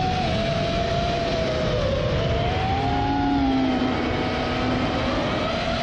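FPV racing quadcopter's four 2306 brushless motors and 5-inch props whining, the pitch rising and falling as the throttle changes through the flight, over a rush of wind on the onboard camera's microphone. A lower steady hum joins for about two seconds in the middle.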